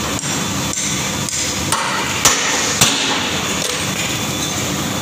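A hammer tapping metal on a three-wheeler chassis, about six sharp strikes spread over a few seconds with the loudest near the middle, as a pin is knocked into place. A steady machine hum runs underneath.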